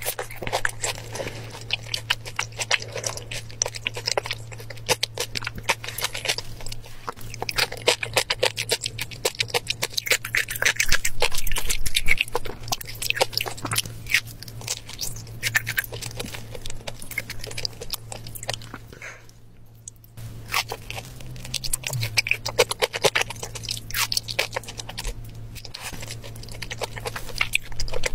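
Close-miked chewing of raw marbled tuna: dense wet mouth clicks and smacks, with a steady low hum underneath. The chewing is loudest about eleven seconds in and dips to a brief lull about two-thirds of the way through.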